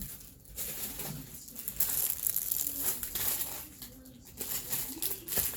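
Packaging crinkling and rustling in irregular bursts as items are handled and unwrapped, loudest around the middle.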